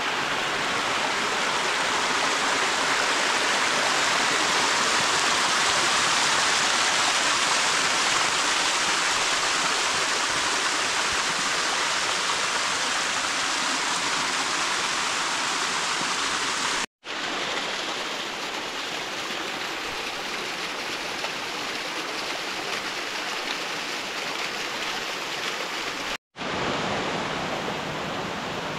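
Small mountain-stream cascades tumbling over rock ledges: a steady rush of falling water. It cuts out for an instant twice in the second half.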